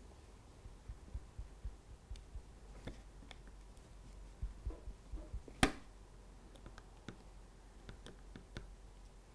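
Faint, irregular clicks and light knocks as a craft knife blade cuts and picks at the plastic sleeper webbing of a Peco three-way point, with one sharper click about five and a half seconds in.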